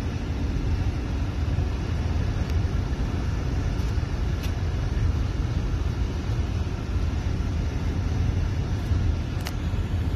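Steady road and engine rumble of a car driving along a highway, heard from inside the cabin, with a few light clicks.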